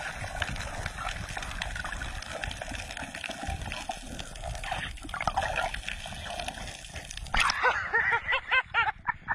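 Underwater water noise with crackles, picked up by a diver's camera during the ascent. About two seconds before the end the sound changes to a quick series of short pitched calls that rise and fall.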